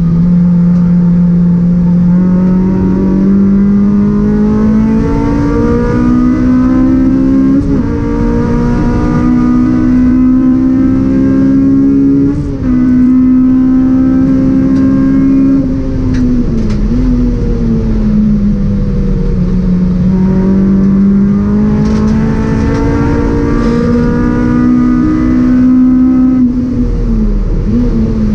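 Honda Civic Type R EP3 race car's four-cylinder engine heard from inside the cabin at full throttle, its note climbing slowly through the revs. It breaks briefly about twelve seconds in, dips and climbs again from around seventeen seconds, and falls away near the end.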